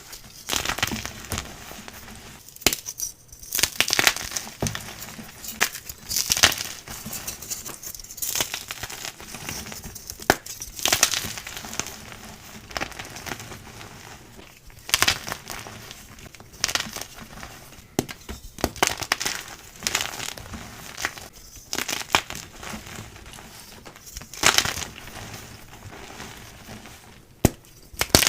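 Blocks of gym chalk being crushed and crumbling, a series of sharp, dry crunches every second or two with softer crumbling between them.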